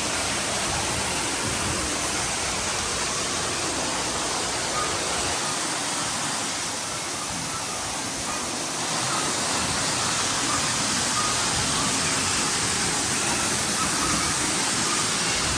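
Steady rushing water, like a waterfall or heavy rain, in the ride's rainforest scene. It dips slightly for a couple of seconds midway.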